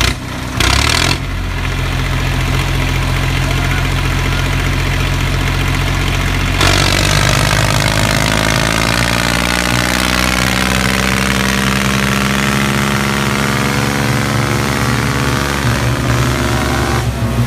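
Tractor diesel engines pulling against each other under full load in a tractor tug-of-war. About six and a half seconds in, one engine is opened up and its note rises. It then sags as the engine lugs and climbs again as it recovers. Two short loud noises come in the first second.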